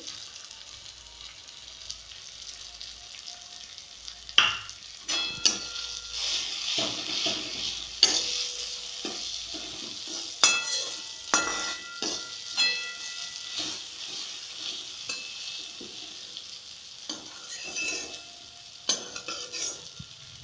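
Tomato-onion masala with red chilli powder sizzling in oil in a kadhai. From about four seconds in, a steel spoon stirs it, scraping and knocking against the pan, and the pan rings briefly at the knocks.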